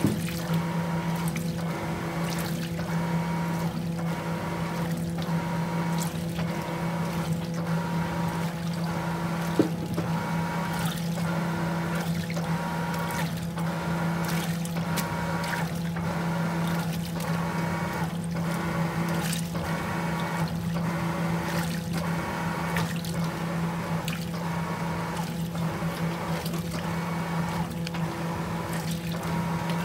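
Top-loading washing machine agitating a tub of sudsy water: a steady motor hum under regular swishes of sloshing water.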